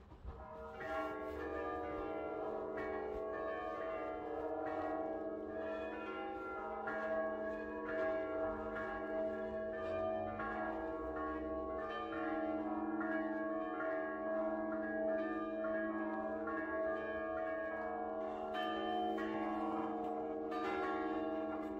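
Church bells ringing: many bells struck in quick, overlapping succession, their tones sounding together continuously.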